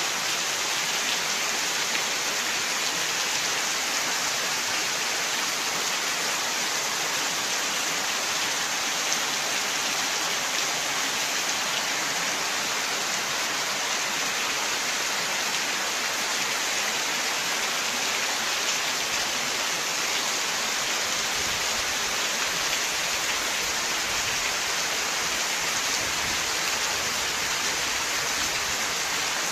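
Glacier meltwater inside an ice cave: a steady, even rush of running and dripping water with no breaks.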